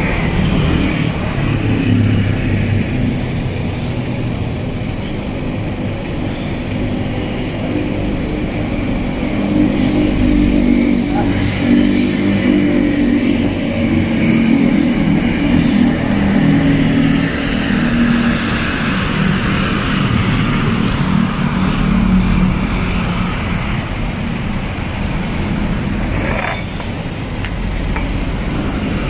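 Road traffic on a busy city street, with the steady low running of a large vehicle's engine through most of it. There is a brief clatter a few seconds before the end.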